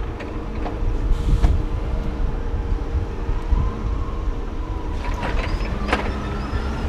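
A vehicle engine running steadily with a low rumble, with a few sharp clicks or knocks through it.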